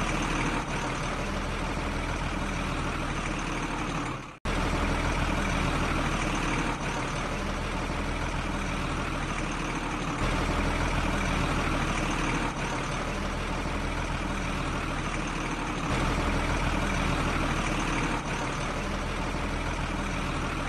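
Heavy truck engine idling steadily, the sound cutting out abruptly for a moment about four seconds in before resuming.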